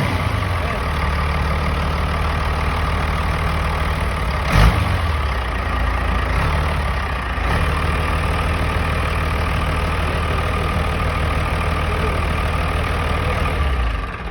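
Isuzu diesel engine of an excavator, converted to mechanical injection, idling steadily, with a single sharp knock about four and a half seconds in. Near the end the engine is shut off by hand at its stop control and its sound drops away.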